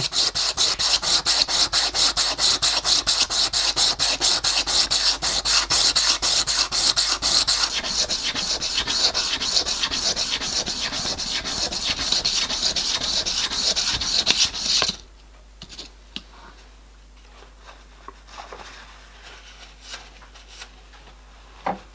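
Small machined metal part rubbed back and forth by hand on 320-grit wet-and-dry abrasive paper wetted with WD-40, flattening its face and taking out machining marks: a fast, even scraping of about five strokes a second. It stops suddenly about 15 seconds in, leaving faint handling clicks and one sharp tick near the end.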